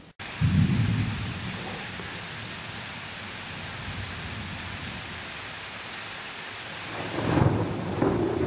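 Thunder rumbling over steady rain: a loud low rumble about half a second in that fades over a couple of seconds, then another rumble building near the end.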